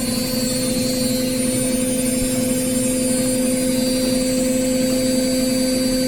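Indesit IWSC 51051 washing machine in its spin cycle, the drum spinning at a steady high speed: a steady motor whine over a constant rushing noise.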